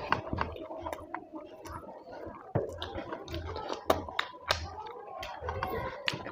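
Close-up chewing and wet mouth sounds of someone eating rice with curry, with irregular sharp lip-smacking clicks.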